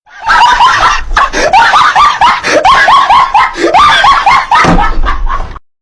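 A person's voice screaming loudly in rapid, repeated rising cries, about three a second, cutting off suddenly near the end.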